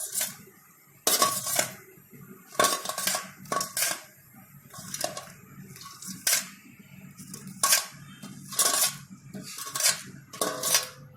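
Metal spoon and vessels clinking in a dozen or so separate strikes, some ringing briefly, as freshly fried paniyaram are scooped and dropped into a bowl.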